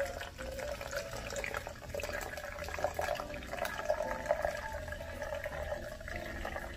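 Topo Chico sparkling mineral water poured from a glass bottle into a plastic cup in a thin, steady stream, splashing as the cup fills.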